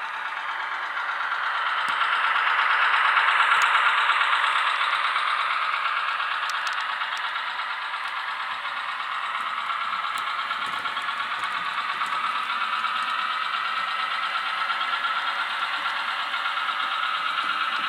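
Diesel engine sound of a Roco H0-scale NS series 200/300 shunting locomotive model, played by its ZIMO sound decoder. It sounds thin, with little bass, swells louder about two to four seconds in, then settles to a steady run, with a few light clicks early on.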